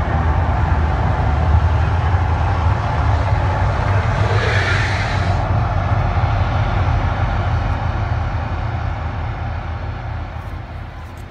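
Deep, steady rumble of a fake-volcano fire show, with a brief rushing hiss about four seconds in. The rumble fades away over the last few seconds as the eruption ends.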